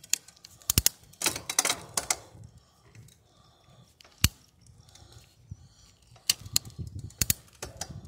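Bicycle rattling as it rolls over a paved trail: irregular sharp clicks and knocks, a cluster in the first two seconds, a single loud knock about four seconds in, and another cluster near the end.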